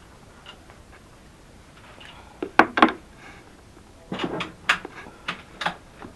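Sharp mechanical clicks and clacks: two close together about two and a half seconds in, then a quicker run of about five a second and a half later.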